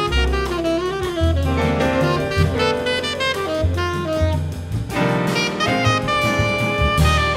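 Jazz ensemble playing: saxophone lines over grand piano, double bass and drum kit.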